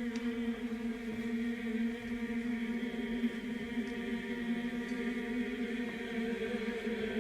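Music: a steady chant-like drone, held on one low note without a break.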